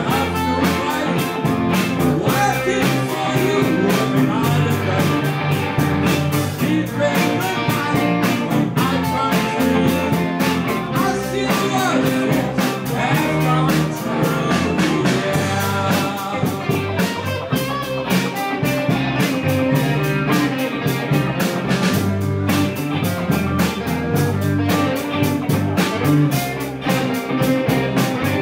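Live blues band playing: electric guitars over a steady drum-kit beat.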